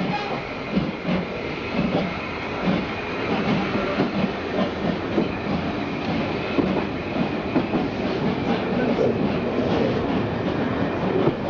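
Class 5MT steam locomotive pulling away, its exhaust beating in a regular rhythm that quickens slightly as it gathers speed, with the rolling stock's wheels clicking and rumbling along the rails.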